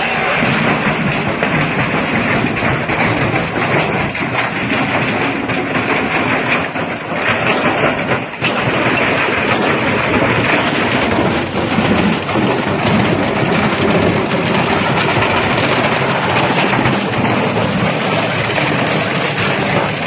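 Washing machine running with a large stone in its drum: a loud, continuous rattling clatter with many knocks throughout.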